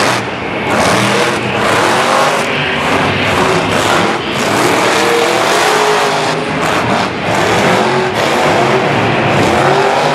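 Monster truck's supercharged V8 engine revving hard, its pitch rising and falling again and again as the throttle is worked.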